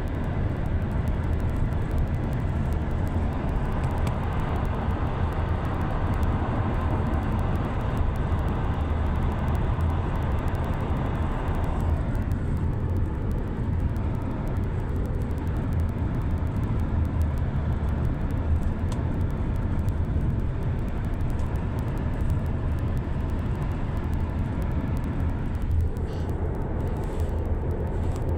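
Steady engine and road rumble heard from inside a moving car, low and continuous; the higher tyre hiss thins out about twelve seconds in.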